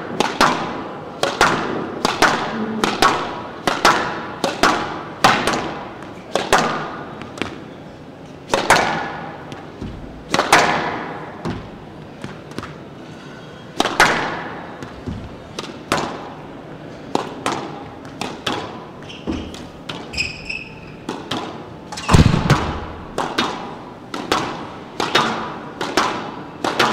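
Squash ball struck over and over with a racket and hitting the court walls, a sharp hit about every second with an echo. A heavier, deeper thud comes a little over 20 seconds in.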